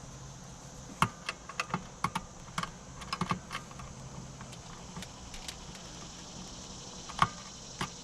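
Irregular sharp clicks and knocks of hard objects being handled, several in quick succession in the first half and a loud single knock near the end, over a low steady hum.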